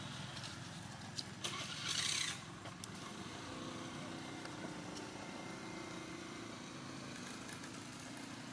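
Steady low engine rumble, like a motor vehicle running nearby. A few faint clicks and a brief, loud noisy burst come about two seconds in.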